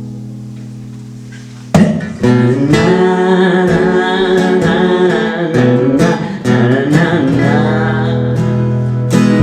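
Acoustic guitar music: a held chord rings out and fades, then about two seconds in a fresh strum starts an instrumental passage of strummed chords with a melody line over them.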